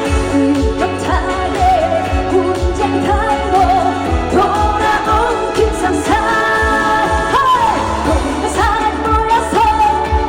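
Trot song performed live: a female singer's voice with held notes and slides over an amplified backing track with a steady kick-drum beat.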